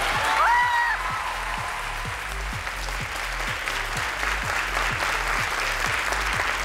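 Studio audience applauding over background music with a steady beat, with a brief high-pitched voice rising in pitch about half a second in.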